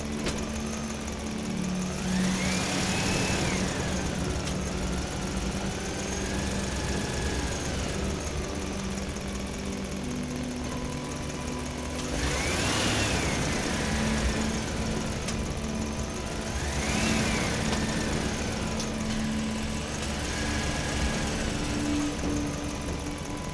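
Excavator's diesel engine running steadily, with a hydraulic whine that rises and falls four or five times as the machine works, each time with a rush of hiss.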